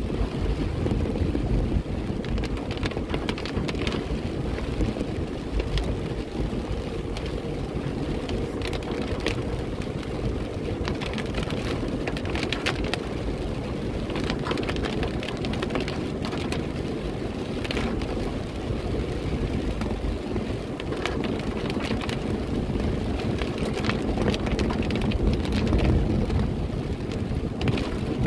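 Rain hitting a moving car's windshield and roof in many small scattered ticks, over a steady low rumble of tyres on the wet road and the engine, heard from inside the car.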